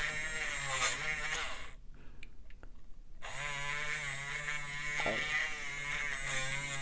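A battery-powered bead reamer with a cut burr tip buzzes as it sands the cut end of a metal ear wire smooth. Its pitch wavers as the wire presses on the burr. It stops for about a second and a half near two seconds in, then starts up again.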